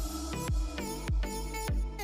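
Electronic background music with a steady kick-drum beat, about two beats a second, under synth chords.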